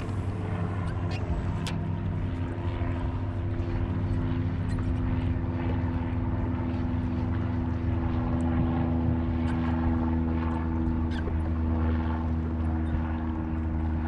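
A steady engine drone: a low hum with several even overtones, held at one pitch, with a few faint clicks over it.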